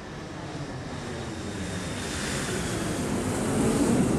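Jet airliner's engines rushing as it comes in to land, the noise growing louder as the aircraft nears and touches down.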